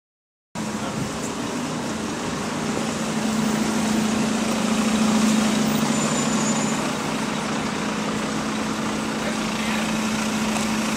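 Alexander Dennis Enviro200 single-deck bus drawing up at a stop, its diesel engine running with a steady low hum that grows louder over the first few seconds and then holds, over street traffic noise.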